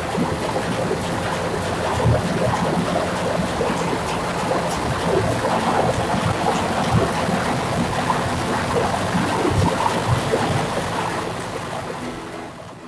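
Ship's diesel generator engine running, loud and steady, easing off a little near the end.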